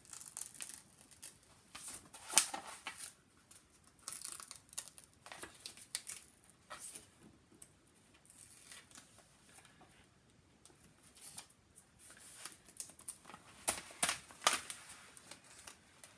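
Paper wrapping around a rolled diamond painting canvas rustles and crinkles as it is peeled back and pressed flat by hand. The sound comes in scattered spells of crackling, loudest about two and a half seconds in and again near fourteen seconds.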